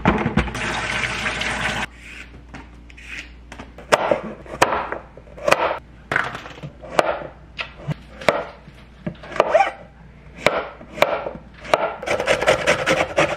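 A short rush of tap water for the first two seconds, then a kitchen knife chopping vegetables on a plastic cutting board in single sharp strokes about every half second to a second. Near the end comes a rapid rasping as a lemon is zested on a hand grater.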